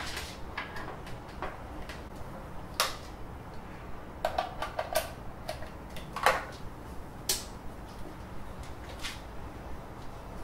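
Scattered light clicks and knocks of handling while a person moves about and plugs in a desktop 3D printer's power cable, over a low steady background hum.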